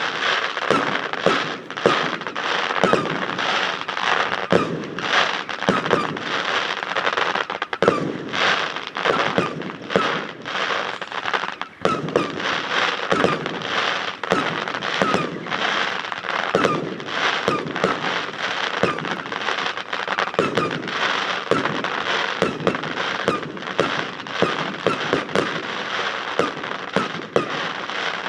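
Fireworks display in a dense barrage of bangs and crackles with hardly a gap. Each report comes with an odd echo off a nearby metal hangar.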